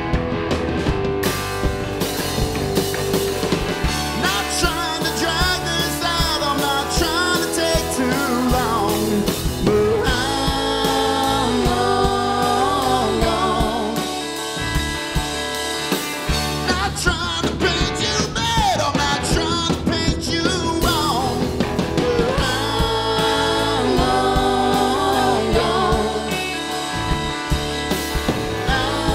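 A rock band playing live: electric guitar, bass guitar and drum kit, with pitch-bending lead lines over a steady bass and drum groove.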